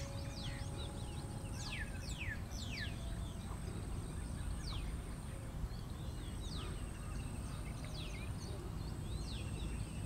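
Small birds calling with short, sharp downward-sweeping whistles, several in quick succession about two seconds in and then scattered every second or so, over a steady low background rumble and a thin steady high-pitched tone.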